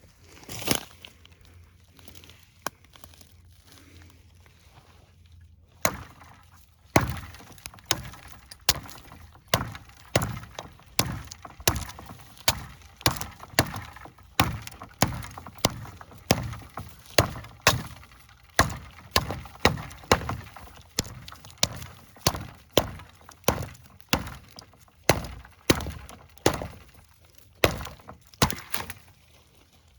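A 7.5-inch Bark River Tope Recon knife with a CPM-3V steel blade chopping: two single blows, then a steady run of sharp strikes at about three every two seconds that stops just before the end.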